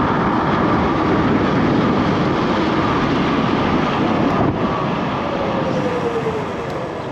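Yume Hawk Pro 60V electric scooter riding at speed: loud rushing wind and road noise with a faint steady whine. Near the end a tone slides down in pitch and the noise eases, as the scooter slows.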